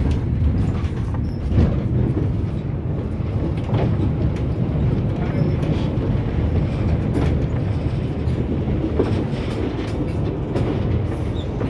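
Passenger train running along the track, heard from a window of the moving carriage: a steady low rumble of wheels on rails with scattered clicks and knocks.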